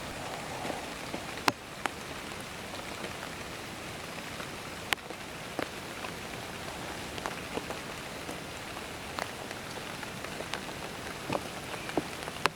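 Rain falling: a steady hiss with scattered sharper drops ticking irregularly, a few of them louder.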